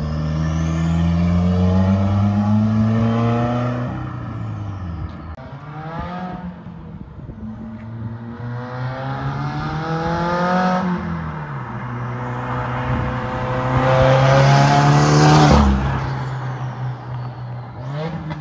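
Subaru WRX's turbocharged 2.0-litre boxer four, running an open downpipe with no exhaust behind it, accelerating hard in rising sweeps broken by drops in pitch at the upshifts. It is loudest as the car passes, a few seconds before the end.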